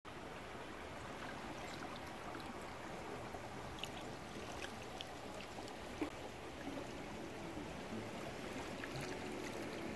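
Flowing river water running steadily over its bed, an even rushing wash with a few small ticks scattered through it.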